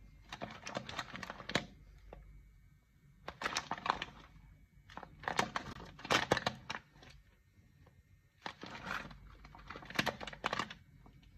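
Packet of whole coffee beans crinkling as it is handled and turned over in the hands, in several bursts of crackling with short pauses between.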